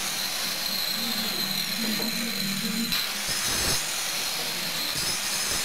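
Small handheld electric circular saw running with a steady whine while it cuts through a wooden beam.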